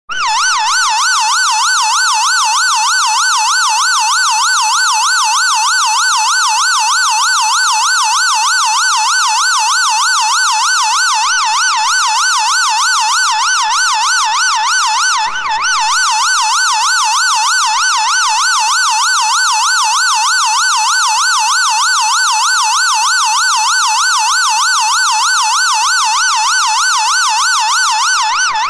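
Synthesized ambulance siren, a fast steady warble sweeping up and down in pitch over and over without a break.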